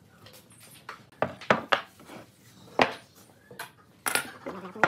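A handful of sharp wooden knocks and metallic clatters as pine blocks and a metal speed square are set down and handled on a wooden workbench, with a cluster of strikes near the end.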